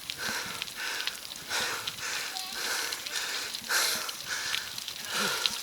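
A cyclist's heavy breathing from hard effort: rapid, rhythmic breaths in and out, about two a second.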